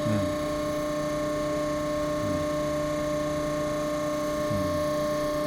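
Hydraulic crimping machine's pump motor running, a steady hum.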